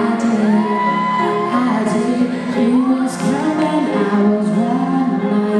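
A young woman singing solo into a microphone over a musical accompaniment, her voice carrying a gliding melodic line above steady held notes.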